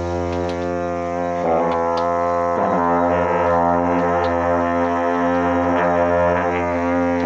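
A pair of dungchen, Tibetan long trumpets, sounding one deep, steady drone rich in overtones, with two brief wavers in the first three seconds.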